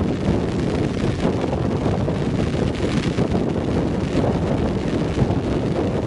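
Strong wind buffeting the microphone, a steady noise heaviest in the low end.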